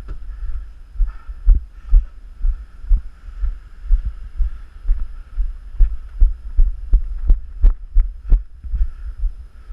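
Footsteps thudding through a body-worn camera, about two to three low thuds a second, over a faint steady hum.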